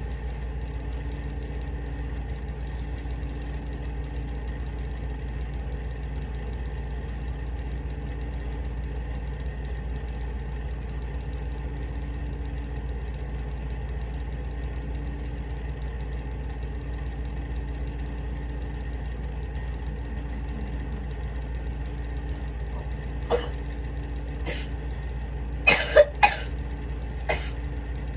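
A person coughing several times over a steady low hum, the loudest a quick run of three coughs about two seconds before the end.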